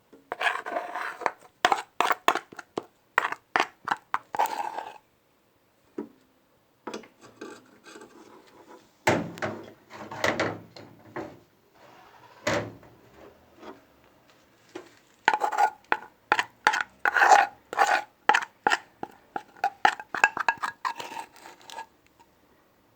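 A kitchen utensil scraping and knocking against a hard surface as the set caramel candies are handled: quick irregular runs of short scrapes and taps, with a quiet pause about five seconds in.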